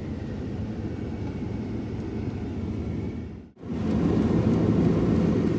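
Steady road and engine rumble of a 4x4 pickup truck driving, heard inside the cab. About three and a half seconds in the sound drops out for a moment, then comes back louder.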